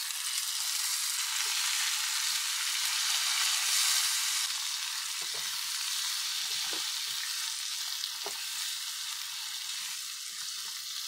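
Raw chicken pieces sizzling loudly in hot ghee with fried onions in a wok, a spatula turning them. The sizzle is strongest about four seconds in and slowly eases, with light spatula knocks in the second half.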